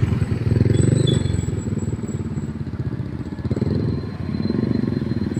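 A motor vehicle engine running, loud at first, easing off about two seconds in and building again near the end.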